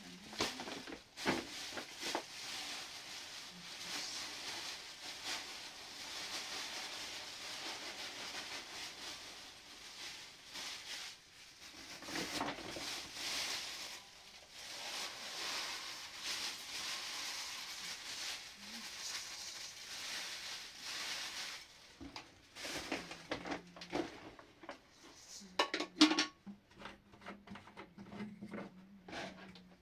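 Steady hiss with scattered clinks and knocks of hard objects being handled; for the last several seconds the hiss drops away and the clinks come sharper and further apart.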